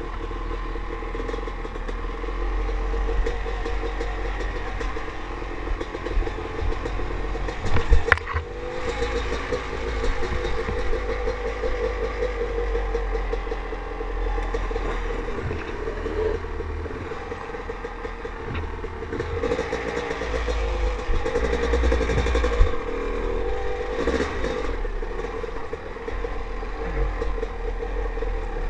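Dirt bike engine running at trail speed, its pitch wavering as the throttle is worked over rocky ground. There is a sharp knock about eight seconds in.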